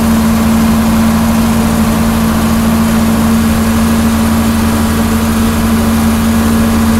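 John Deere 4430's six-cylinder turbo diesel engine running at a steady working speed as the tractor pulls a sprayer across the field, heard from inside the cab.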